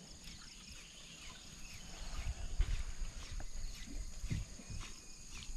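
Outdoor lakeside forest ambience: a steady high drone with scattered short chirps, and a low gusty rumble of wind on the microphone growing from about two seconds in. A single sharp knock comes about halfway through.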